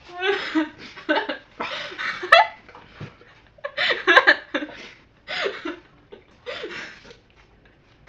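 Laughing in repeated breathy bursts, with a sharp click a little over two seconds in.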